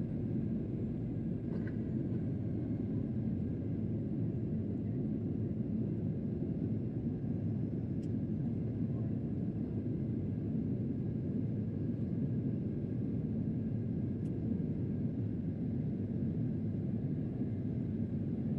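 Steady cabin rumble of a Boeing 737-800 in flight: its CFM56-7B turbofans and the airflow over the fuselage heard from inside the cabin, an even low noise with a few faint clicks.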